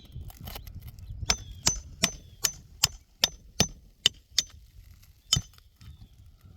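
Hammer blows on metal: about nine quick, evenly spaced strikes a little under half a second apart, then one more a second later, each with a short metallic ring.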